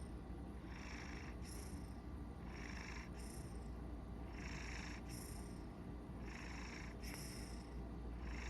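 Maine Coon cat purring in its sleep, a steady low purr rising and falling with its breathing, about one breath every two seconds.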